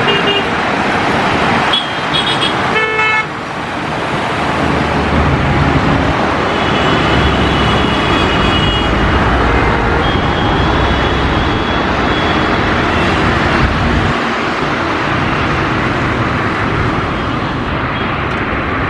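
Steady road traffic noise with car horns honking now and then.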